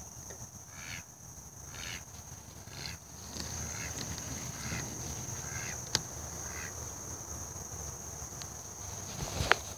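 An animal calling in short notes about once a second over a steady high-pitched hum, with a sharp click about six seconds in and a louder one near the end.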